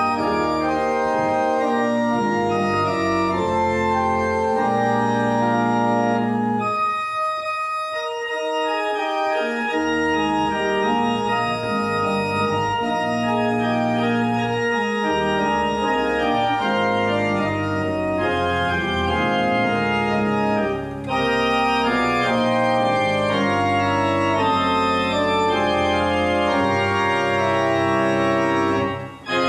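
Church organ playing sustained chords over a bass line; the bass drops out for a couple of seconds about a quarter of the way in, and the sound breaks off briefly just before the end.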